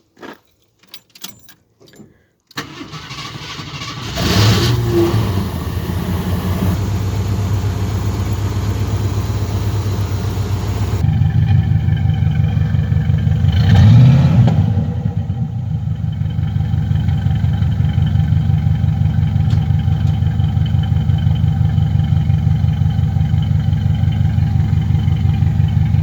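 A 1975 AMC Matador's engine cranks and starts about three seconds in on its freshly rebuilt carburetor, then settles into steady running. It is revved briefly once near the middle.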